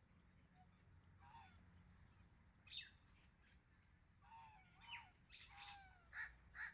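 Several birds calling in short squawks and chirps, some sliding down in pitch. One call comes about a second in, and the calls come more often in the second half.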